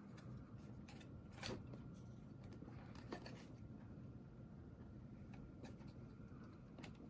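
Small cordless desk fan running quietly with a faint steady hum, with a few light clicks of handling about one and a half, three and seven seconds in.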